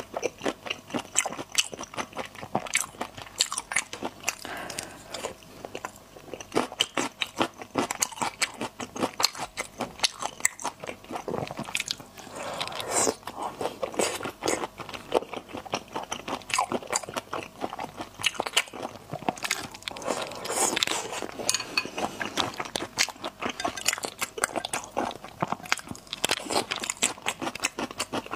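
Close-miked chewing and crunching of spicy raw shrimp, a dense, irregular run of sharp crunches and bites.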